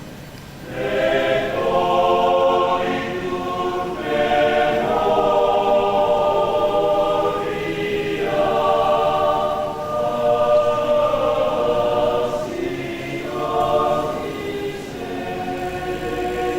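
Church choir singing in parts, entering loudly about a second in and holding sustained chords.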